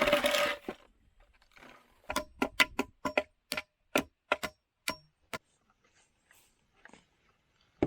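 A noisy sound that stops within the first second, then, after a short pause, a quick irregular run of about a dozen sharp clicks or ticks, thinning out to a few faint ones near the end.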